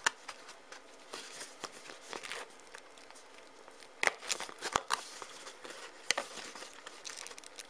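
Cardboard lid of a booster box being handled and pried open by fingers: a low rustle and scrape of card, with a few sharp clicks or taps, the loudest about four seconds in.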